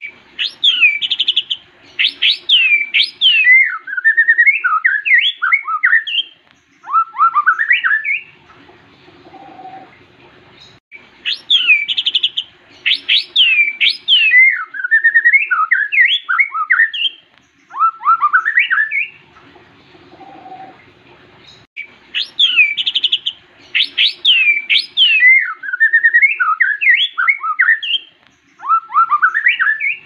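White-rumped shama singing in a cage: a loud phrase of fast, sweeping whistled notes and slurs, about eight seconds long, given three times over with short pauses between.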